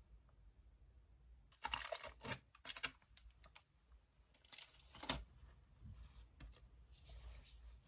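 Typing on a laptop keyboard: a few short runs of soft key clicks, the loudest about two seconds in and again about five seconds in.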